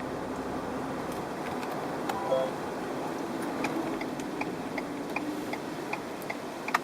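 Wind noise in the cabin of a 2016 Ford F-150 on the move: a steady rushing hiss, louder from the right door, like an air leak, the excessive wind noise left after repeated door repairs. Light ticks come about three times a second from about halfway in, and a brief tone sounds about two seconds in.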